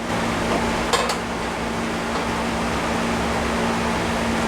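Air conditioner running at full blast: a steady rush of air over a low hum, with two light clicks about a second in.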